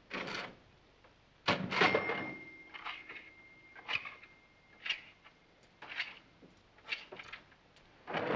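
Mechanical cash register being rung up: a string of key and lever clunks about once a second, with its bell ringing about two seconds in and dying away over a few seconds.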